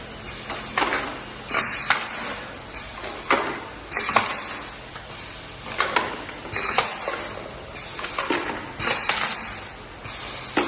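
Drink-can crusher machine at work: repeated metallic clanks and crunches of cans being crushed, about one a second, over a steady mechanical noise.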